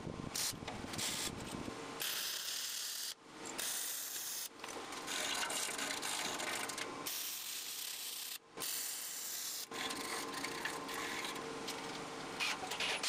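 Welding steel square tubing: a steady hiss-like noise that cuts off abruptly several times and starts again, as separate welds are run.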